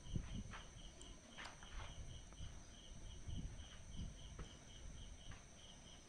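Quiet ambient sound: a faint high chirp repeating evenly several times a second, with soft scattered footsteps on a concrete floor.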